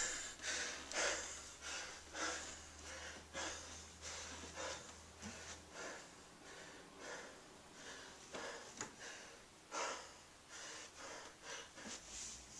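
A man breathing hard, hard quick breaths about once a second: winded after 41 pull-ups in a row.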